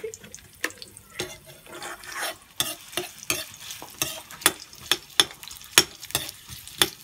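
Metal spoon stirring chopped onion and garlic in a stainless steel pan, clinking against the pan about two to three times a second over a faint sizzle of frying.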